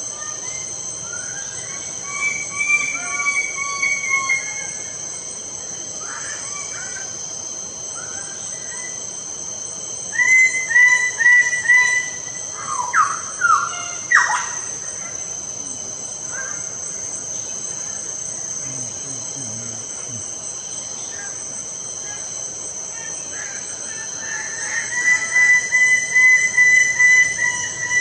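Lesser birds of paradise calling: three bouts of loud, quickly repeated notes, about two seconds in, about ten seconds in and near the end, with a few sharp downward-sweeping calls in between, over a steady high-pitched insect drone.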